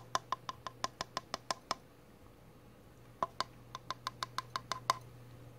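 Fox squirrel chattering: two quick runs of sharp clicks, about seven a second, with a short pause between them.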